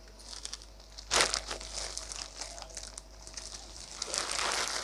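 Clear plastic saree wrapping crinkling and rustling as packets are handled, with the loudest crackle about a second in and another flurry near the end.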